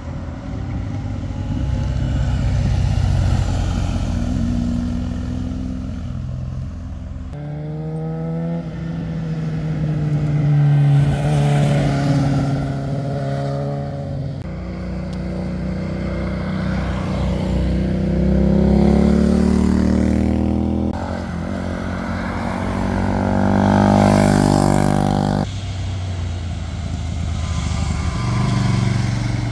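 Motorcycles riding past one after another, engines rising and falling in pitch as they accelerate through the bends. The sound changes abruptly several times where one clip cuts to the next.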